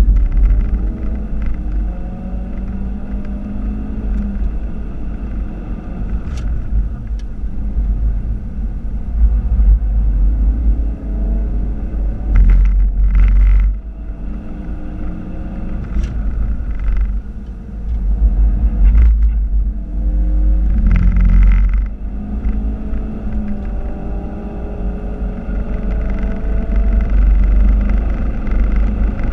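In-cabin sound of a Ford Focus RS mk3's 2.3-litre turbocharged four-cylinder engine at full throttle on track, revs rising in long pulls and falling back at each gearshift, over a heavy low rumble of road and tyre noise. The sound drops away briefly twice about halfway through before the engine pulls again.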